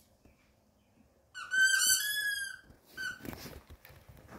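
Squeaker in a plush elephant toy squeaking as a Bichon Frise bites on it: one long squeak about a second and a half in, then a short one near three seconds.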